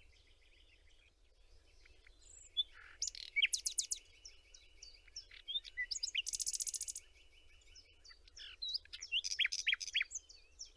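Birdsong from a generated nature soundscape: several birds calling in quick, short chirps and trills, over a steady high note held for several seconds in the middle, with a dense buzzing trill about six seconds in.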